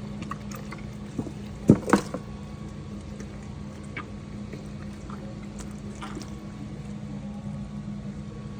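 Water running steadily while a raw turkey is rinsed out, with two sharp knocks about two seconds in and a few light clicks.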